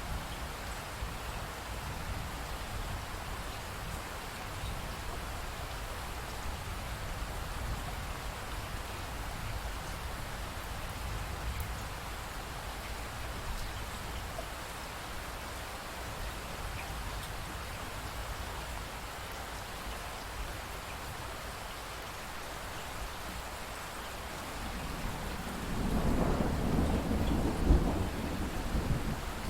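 Steady rain falling, an even hiss with a low rumble underneath. About 25 seconds in, a roll of thunder builds and grows louder, peaking near the end.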